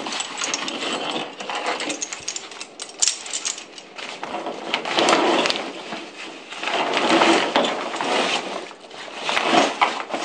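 Canyoneering harness being stuffed into a Gear Perspective Ultralight canyoneering pack: rustling of the stiff pack fabric in uneven swells, with light clinks of the harness's metal buckles.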